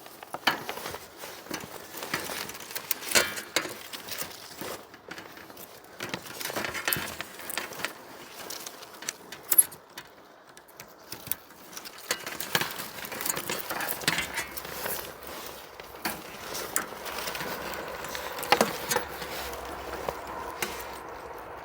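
Irregular clicks, taps and rustles of hands at work on solar panel wiring, as MC4 connectors and cables are handled and clipped together.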